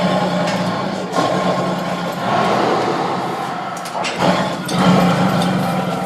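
Lion roaring: a series of deep, rough roars, with a fresh roar starting about a second in and another about four seconds in.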